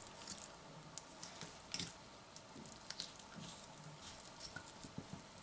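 Faint, irregular wet squishes and small ticks of a knife and fingers working raw nutria meat, cutting and peeling the membrane off the back fillet on a wooden chopping board.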